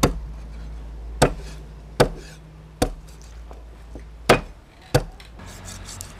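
Steel meat cleaver chopping a cleaned shark into rounds on a round wooden chopping block: six sharp chops, roughly one a second, each knocking into the wood.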